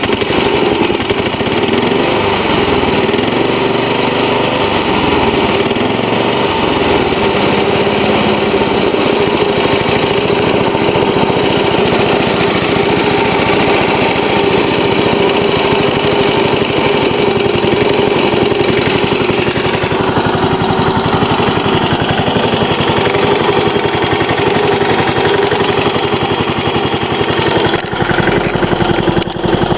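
Briggs & Stratton single-cylinder engine of a Murray 22-inch push mower running steadily at a low idle, with a brief dip in level near the end.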